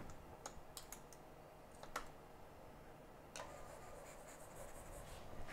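A few faint, scattered clicks and taps of small objects being handled in a quiet room. A faint, steady high hiss starts about three and a half seconds in.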